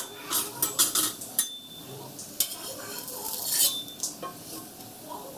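Metal spatula scraping and clattering against a flat griddle (tawa) as a thalipeeth is loosened and lifted, in two runs of quick strokes, with oil sizzling quietly under it.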